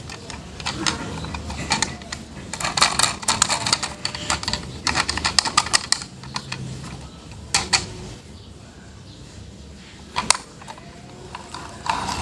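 Light clicks and rattles of toy vehicles and their packaging being handled, coming in quick clusters, with a couple of single sharp knocks later on.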